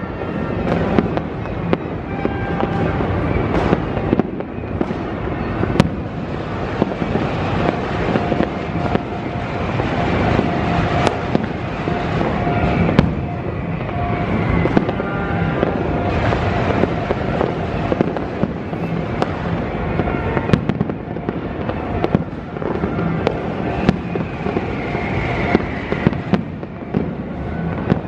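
New Year's Eve fireworks and firecrackers going off without a break: many overlapping bangs and crackles at a steady loud level.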